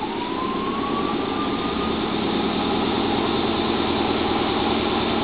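Electric train pulling away, heard inside the carriage: a motor whine rising in pitch for about two seconds and then holding steady over rumbling running noise that grows slowly louder as the train gathers speed.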